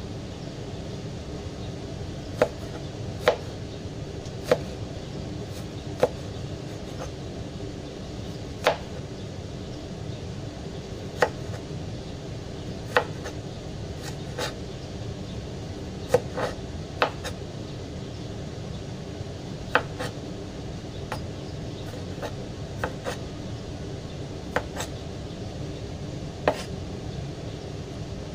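Cleaver chopping bell peppers on a plastic cutting board: sharp single knocks of the blade striking the board at irregular gaps, roughly one every second or two, over a steady low background hum.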